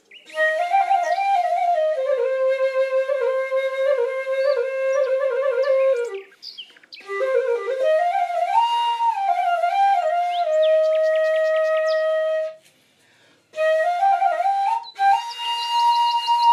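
Flute music: a solo flute melody played in phrases, with long held notes and short pauses about six and thirteen seconds in.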